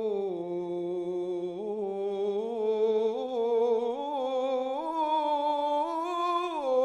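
A man's unaccompanied voice chanting an Arabic religious ibtihal, holding one long melismatic note with wavering ornaments. The note climbs in steps in the second half and drops back near the end.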